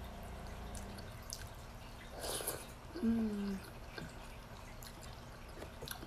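Close, wet mouth sounds of a person eating by hand: soft smacking and small clicks, a short noisy rustle a little after two seconds, and a brief hummed "mm" about three seconds in.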